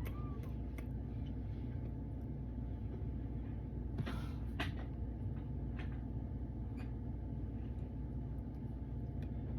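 Steady low room hum with two short, soft puffs of breath about four seconds in, a pipe smoker exhaling as he blows smoke rings.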